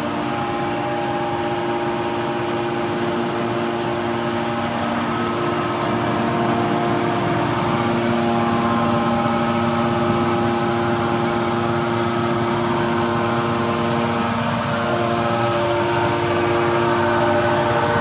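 Hydraulic power unit of a 500-ton scrap metal baler running: electric motors driving the hydraulic pumps give a steady hum with several held tones, getting a little louder partway through.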